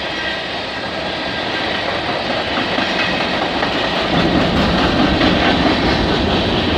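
Freight cars of a CN freight train rolling past close by: a steady rumble of steel wheels on rail with clickety-clack as the wheels cross rail joints, growing a little louder about four seconds in.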